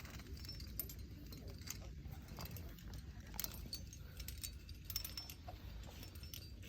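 Metal trad-climbing gear, carabiners and cams racked on a harness, clinking and jangling now and then as the climber moves up the crack, over a low steady rumble.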